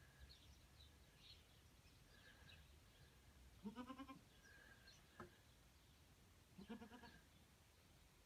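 Doe goat in labour bleating twice, each call short and wavering, about three seconds apart, over faint high chirping.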